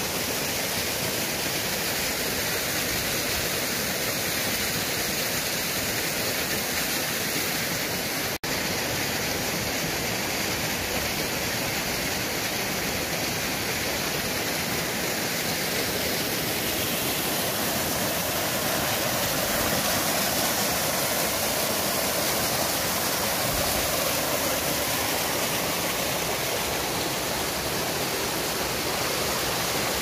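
Mountain stream rushing and splashing steadily between granite boulders, with a momentary break about eight seconds in.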